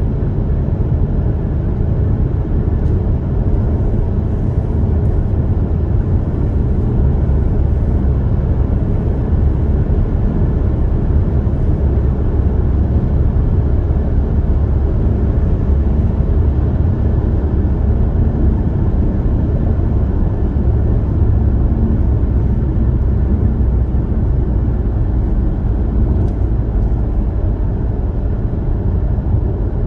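Car cruising at highway speed, heard from inside the cabin: a steady low rumble of tyres on the road and the running engine.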